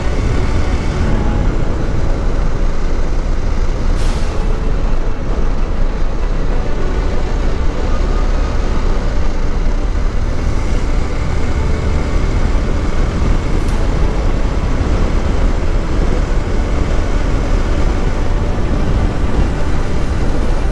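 Hero Xpulse 200's single-cylinder engine running at a steady cruising speed, under heavy wind rush buffeting the microphone.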